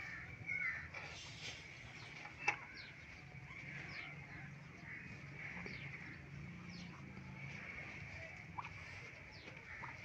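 Faint outdoor farmyard ambience: small birds chirping now and then, short falling calls every second or so, with a single sharp click about two and a half seconds in.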